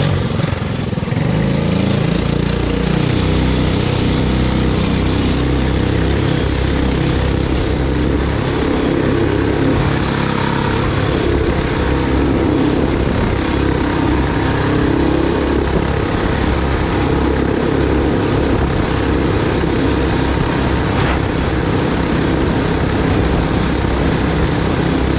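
The kart's two Tillotson single-cylinder four-stroke engines run under full throttle. Their pitch rises over the first couple of seconds as the kart pulls away from a standstill, then holds at a steady, high-revving drone at speed.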